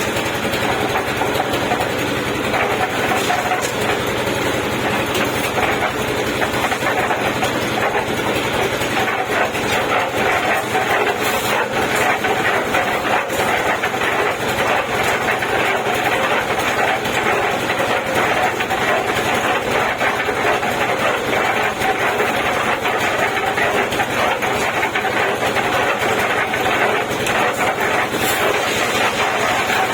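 Concrete mixer running steadily: an engine drone with a dense, continuous rattle.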